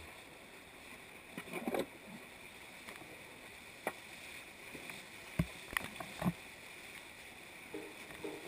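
Whitewater rushing over a mill weir, with a plastic kayak sliding off the concrete ledge into the churning water: a handful of sharp knocks and splashes over the steady rush, the loudest a little past five and six seconds in.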